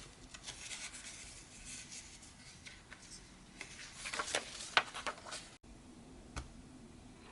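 Faint rustling and light tapping of paper and cardstock pages being handled and laid down, with a few sharper ticks; the audio cuts out abruptly for an instant about five and a half seconds in.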